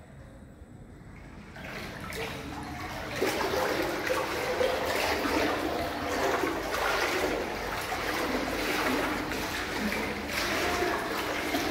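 Indoor floodwater sloshing and splashing as someone wades through it. Quiet at first, the sloshing starts about two seconds in and grows louder, going on in uneven surges.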